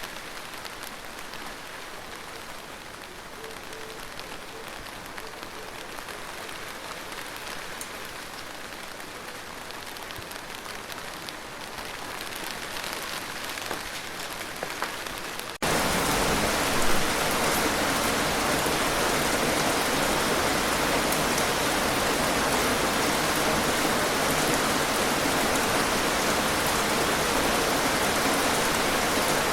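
Rain falling: light at first with scattered separate drops and slowly building, then about halfway through it switches suddenly to much louder, heavier, steady rain.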